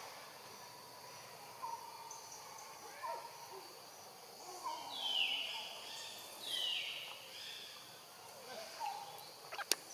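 Outdoor forest ambience: a steady high insect hum with scattered short chirping calls, two louder calls that sweep downward around the middle, and a sharp click near the end.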